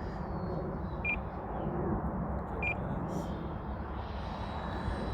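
Two short, high electronic beeps about a second and a half apart, over steady wind and outdoor noise, with the faint high whine of the model jet's electric ducted fan in the background.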